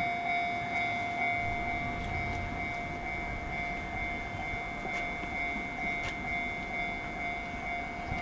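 Low rumble of a distant approaching freight train hauled by two EF64 electric locomotives, under two steady high-pitched tones.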